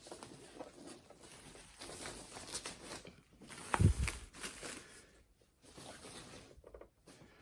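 Packaging being handled as the turntable is unpacked: faint rustling and scraping, with a dull thump about four seconds in.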